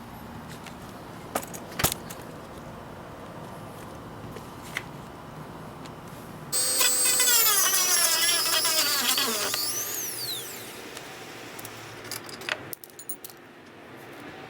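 A handheld power tool's motor starts with a high whine about halfway in; its pitch sinks steadily as it slows over about three and a half seconds, then fades. A few sharp clicks of the tool being handled come before it.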